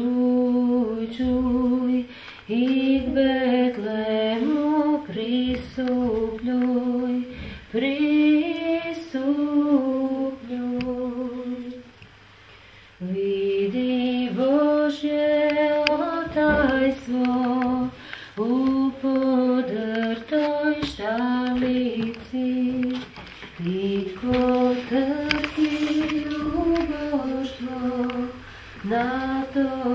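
A woman singing a slow unaccompanied song in phrases of held notes, with a short pause about twelve seconds in.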